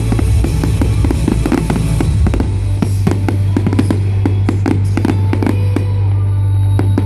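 A fireworks display, with rapid bangs and crackles going off many times a second over loud show music with a heavy bass.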